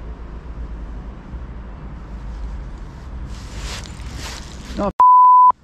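Steady low outdoor rumble with wind-like hiss, then, near the end, a loud flat beep of about half a second with the sound cut to silence around it: a censor bleep laid over a spoken word.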